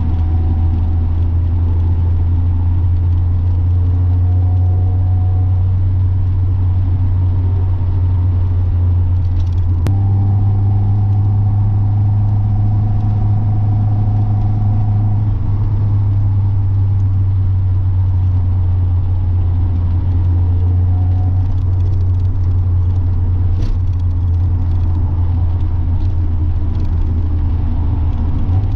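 Mazda Miata's four-cylinder engine and exhaust droning steadily while driving, over road noise. The engine note steps up about ten seconds in and settles back a few seconds later.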